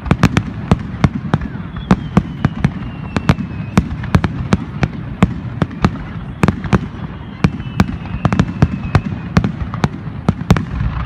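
Fireworks display: shells bursting in rapid succession, sharp reports several times a second over a continuous low rumble, with a faint high whistle gliding slowly down in pitch now and then.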